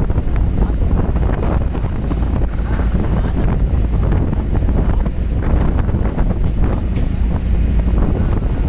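Motorboat running under way, with heavy wind buffeting the microphone.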